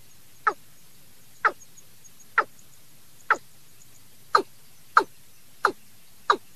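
Recorded call of a watercock (cúm núm): a series of short, hollow notes, each falling in pitch, eight in all, spaced about a second apart and then coming quicker from about four seconds in.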